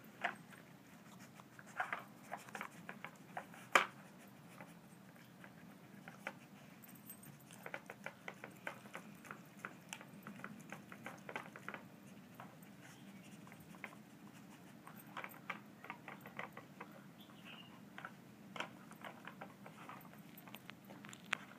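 A greyhound nosing a plastic Nina Ottosson Tornado dog puzzle: irregular light clicks and taps of the stacked plastic layers being pushed and knocked, some in quick clusters, with one sharper knock about four seconds in.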